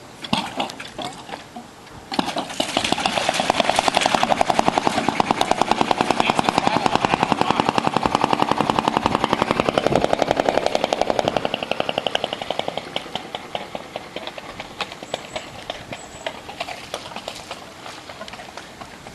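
1922 Gray Motor Company 3 hp marine engine speeding up about two seconds in as the throttle is opened, running fast with rapid, even firing beats. About ten seconds later it slows back to a slower, uneven putt.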